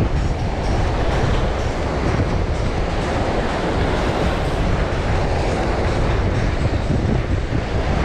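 Wind buffeting the microphone in a steady, uneven rumble, with small waves washing on the beach beneath it.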